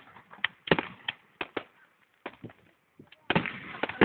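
Fireworks exploding: an irregular run of sharp bangs, a few close together, turning into a denser, louder volley with crackle near the end.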